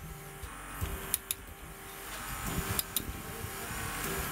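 Hydraulic torque wrench and its pump tightening a high-strength friction-grip bolt at a 75-bar pressure setting: a hum that switches on and off in strokes of about a second, with sharp ratchet clicks between them, the sound building up after about two seconds.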